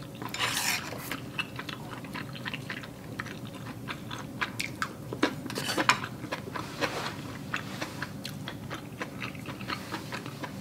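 A person chewing a mouthful of soft, sticky Korean rice cakes in soup close to the microphone, heard as many small, irregular mouth clicks and smacks.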